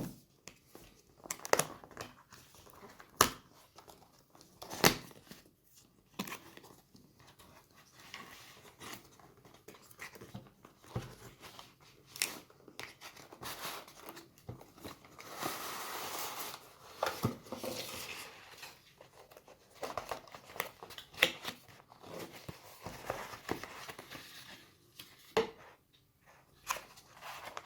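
A cardboard product box being opened and its paper and plastic packaging handled, heard as scattered sharp clicks and knocks, strongest in the first few seconds, with a longer stretch of crinkling about halfway through.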